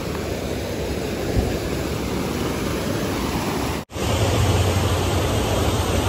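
Rushing water of a rocky waterfall cascade, a steady rush of noise. It cuts out for an instant about four seconds in and comes back louder, with a deeper low rumble.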